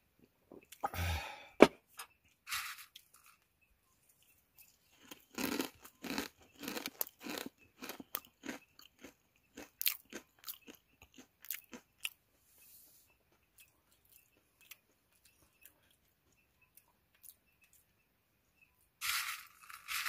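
A person eating close to the microphone: crunchy chewing and short clicks in irregular bunches for about the first twelve seconds, then mostly quiet apart from a faint steady high tone.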